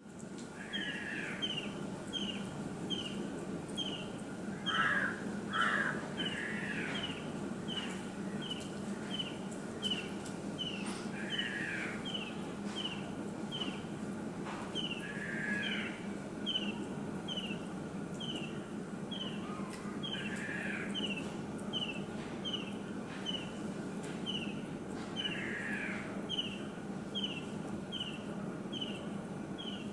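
Birds calling: a short, high, falling note repeated about twice a second, with a longer, lower call breaking in every four or five seconds, over a steady low hum.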